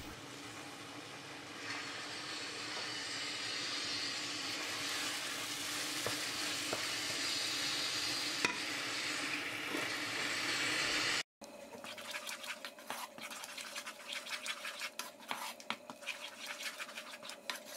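Wooden spatula stirring a thick roasted-eggplant and melting-cheese sauce in a nonstick pan on the stove: a steady soft scraping and sizzling for most of the time, then, after a brief cut about eleven seconds in, quicker, distinct scraping strokes against the pan.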